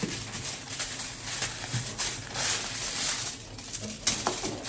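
Aluminium foil being handled on a tabletop, rustling and crinkling, with a few light clicks about four seconds in.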